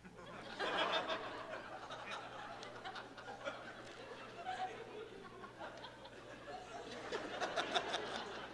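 Audience laughing. The laughter breaks out about half a second in and swells again near the end.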